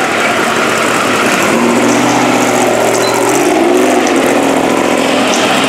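Off-road race truck's engine running at low speed as it rolls up onto the finish ramp, its pitch rising briefly about three and a half seconds in.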